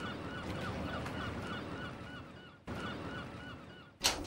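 A flock of water birds calling over and over, several rapid arched calls a second, thinning out and fading after about two and a half seconds. A single sharp, loud click about four seconds in.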